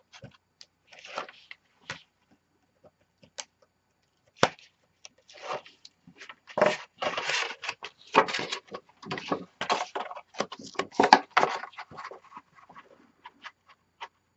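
Kraft cardboard panels and tape being handled on a table: bursts of rustling and scraping with gaps between, busiest in the middle, and one sharp tap about four and a half seconds in.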